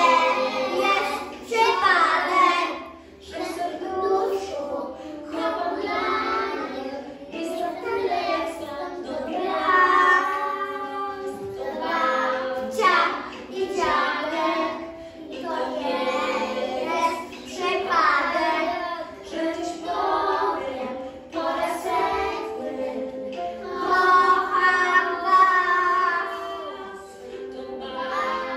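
A group of preschool children singing a song together.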